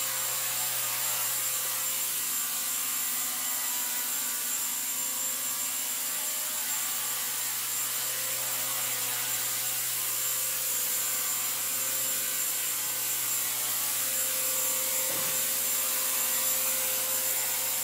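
Align T-Rex 250 SE electric RC helicopter in flight: the steady whine of its electric motor and the whir of its spinning rotor blades.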